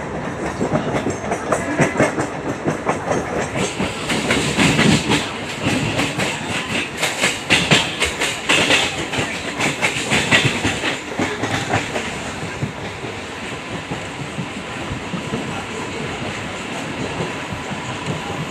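Train running on the rails, its wheels clattering over rail joints; the clatter is thickest in the middle, then settles to a steadier running noise.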